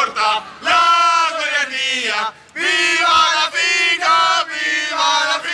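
Young men's voices chanting loudly, a close voice leading in several drawn-out, held phrases with others joining in.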